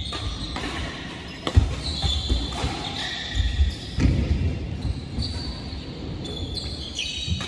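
Badminton rally: sharp racket-on-shuttlecock hits, the loudest about a second and a half in, with shoes squeaking on the court floor and footfalls thudding as the players move.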